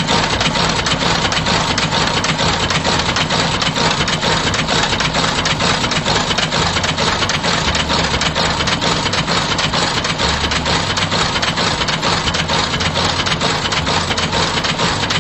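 Heavy industrial boot-stitching machine sewing a Goodyear-style welt: a fast, even, mechanical rattle of stitches that keeps up steadily.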